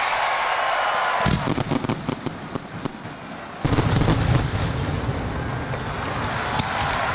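Fireworks display: a hiss, then a run of rapid crackling pops, then a sudden loud bang about three and a half seconds in that carries on rumbling.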